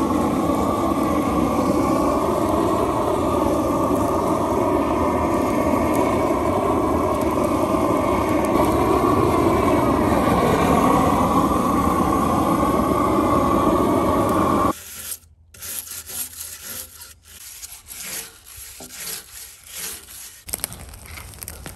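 Propane torch burning with a loud, steady rush of flame as it chars a log, stopping abruptly about fifteen seconds in. Then a long-handled stiff-bristle brush scrubbing along a log in quieter, irregular strokes.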